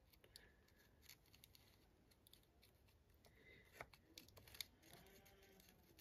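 Near silence, with a few faint small clicks and scrapes from a soldering iron tip working the old display's flex cable loose from the keypad phone's board.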